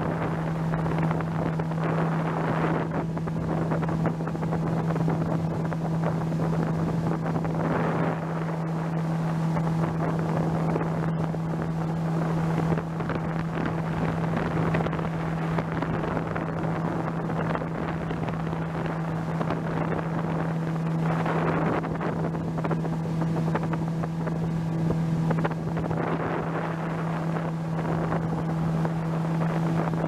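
Boat's outboard motor running at a steady cruising speed under way, one constant engine drone, with wind buffeting the microphone.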